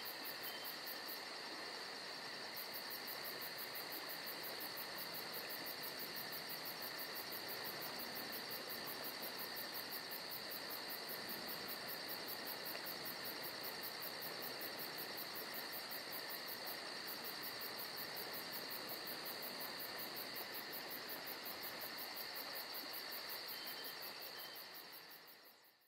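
Steady high-pitched insect chirping: a fast, even pulsing over a constant high whine, fading out near the end.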